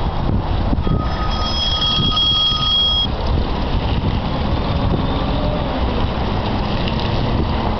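Taylor Y-20-WOM forklift's engine running steadily. About a second in, a steady high-pitched tone joins it for about two seconds, then stops.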